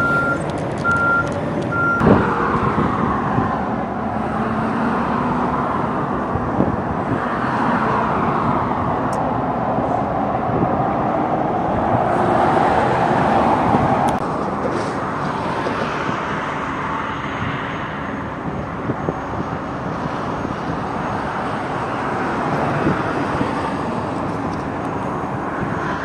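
Heavy construction vehicles working: a reversing alarm beeps steadily and cuts off about two seconds in. After that comes a heavy vehicle engine running, its pitch rising and falling, loudest about halfway through.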